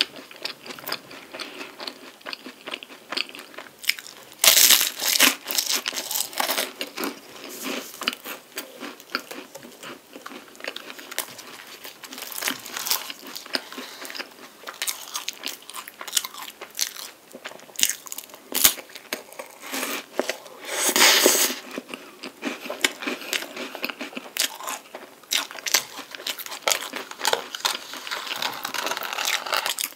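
Close-up crunching and chewing of flaky chocolate-coated puff pastry (palmier carré), mixed with the crinkle of a paper wrapper being handled and peeled. There are two louder stretches, about four and a half seconds in and about twenty-one seconds in.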